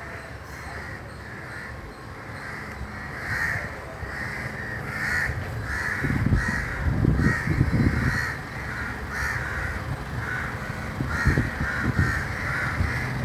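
Crows cawing in a steady run of short calls, about one or two a second, with a low rumble in the middle.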